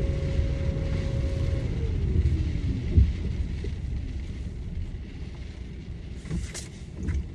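Car running with a low rumble inside the cabin as it slows, a steady whine falling in pitch about two seconds in; a few sharp clicks near the end.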